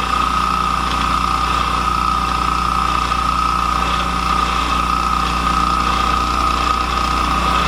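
Benchtop CNC mill face milling with a roughing end mill at about 400 mm a minute: spindle and cutter running with a steady high whine over a low hum.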